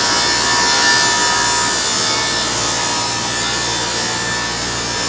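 Gang rip saw ripping a 2x4 into laths: a loud, steady sound of several blades cutting through wood.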